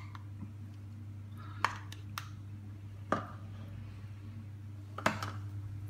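A metal spoon clicking and tapping against a plastic pot as cream is scooped out and dolloped onto pizza dough, about four sharp clicks in all, over a steady low hum.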